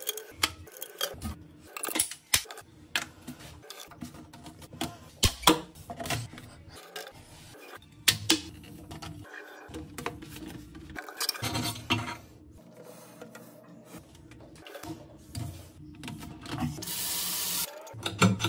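White plastic sink-drain siphon parts clicking, knocking and rubbing as the tailpiece and trap are pushed together and their slip nuts hand-tightened. A steady hiss follows near the end.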